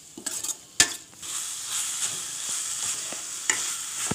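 Minced chicken with onions and spices sautéing and sizzling in a stainless steel kadai while a metal spoon stirs and scrapes it against the pan, with one sharp clack of the spoon on the pan a little under a second in. The sizzle grows steady from about a second in.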